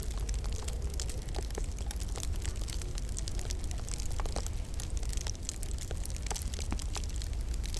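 Wood fire burning in a log burner, crackling with many small irregular pops over a steady low rumble.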